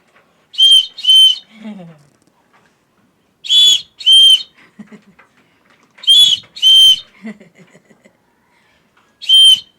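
A whistle blown in short double blasts, four pairs about two and a half seconds apart. Each blast is a steady, loud, high-pitched tone.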